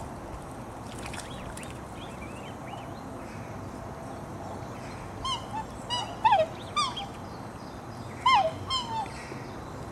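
Black swan cygnets calling: short, high peeps that slide downward, about five in quick succession from about halfway through, then three more a second later, over a steady background hiss.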